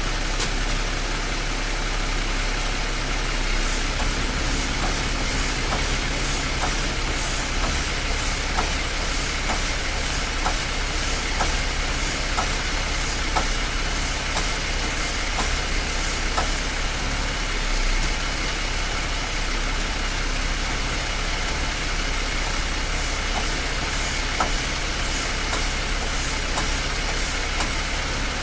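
2018 Jeep Wrangler JL's power steering clunking in scattered, irregular knocks over the engine running steadily at idle. This is the sound that comes with the steering wheel intermittently locking up, which the owner finds happens only with the engine at full operating temperature.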